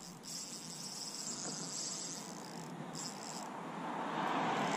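Drag of a Tubertini Ryobi Arias 2000 spinning reel giving line to a hooked carp: a high, rapid buzz of clicks that runs for about two and a half seconds, stops, and comes back briefly about three seconds in. Wind noise on the microphone rises near the end.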